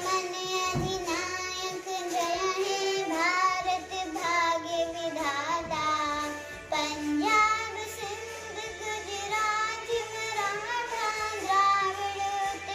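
A child singing a song over backing music, with long held notes that waver in pitch.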